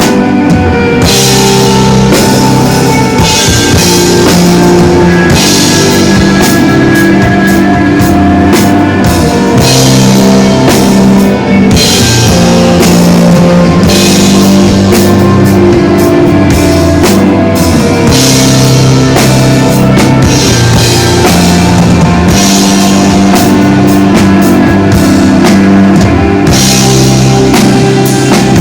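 Instrumental desert rock played live by a guitar, bass and drums band, the sustained guitar and bass notes under a steady drum beat, with cymbals swelling in and out every few seconds.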